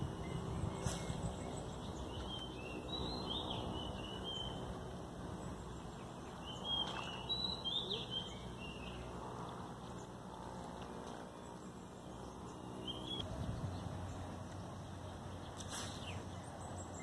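Small birds chirping in short runs of high calls, clustered a few seconds in, again around the middle and once more near the end. Low wind rumble on the microphone fades out over the first seconds, and there are two sharp clicks, one about a second in and one near the end.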